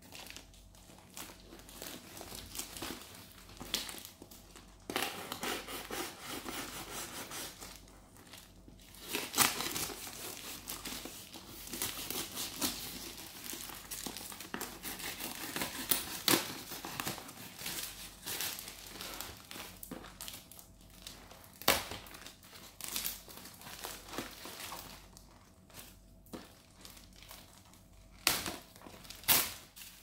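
Black plastic mailer bag crinkling and rustling as it is handled and pulled open around a cardboard box, with irregular sharp crackles and some tearing of the plastic.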